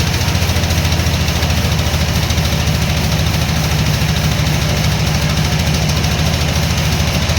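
Sawmill machinery running: a loud, steady engine drone with an even pulsing beat and a constant hiss over it.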